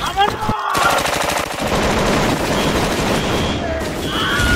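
Sustained rapid automatic gunfire from a machine gun, starting about a second in and running on as a long unbroken string of shots.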